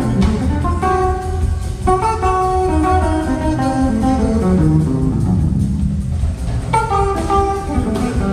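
Live soul-rock band playing: electric bass, keyboards and drums under a melodic lead line of separate, stepping notes.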